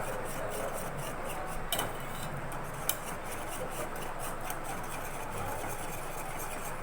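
A ladle stirring payasam in a cooking pot, rubbing and scraping steadily, with two sharper clinks of the ladle against the pot about two and three seconds in.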